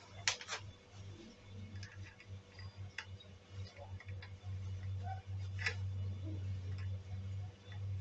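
Light clicks and taps from a plastic Blagdon PowerSafe 5 pond switch box being handled while a small screwdriver fixes a wire into one of its terminals. The sharpest clicks fall just after the start, around three seconds in and near six seconds, over a steady low hum.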